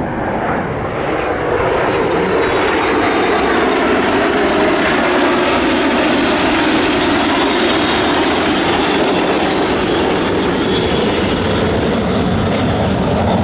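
A formation of L-39 Albatros jet trainers flying past, their single turbofan engines making a loud jet roar that builds over the first second or two and then holds steady.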